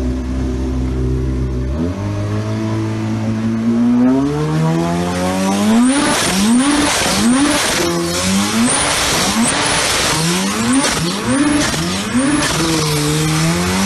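Turbocharged Yamaha jet ski engine running steadily, then revving up about two seconds in. From about six seconds in it runs hard under a loud rush of noise, its pitch climbing in quick repeated surges about every half second or so.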